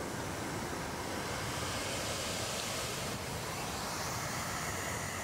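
Waterfall and river rapids rushing: a steady, even noise of white water that does not let up.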